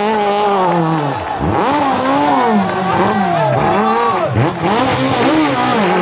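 Peugeot 306 Maxi kit car's 2.0-litre naturally aspirated four-cylinder rally engine at full stage pace, the revs climbing hard and then dropping sharply several times as the car lifts, shifts and accelerates again through the corners.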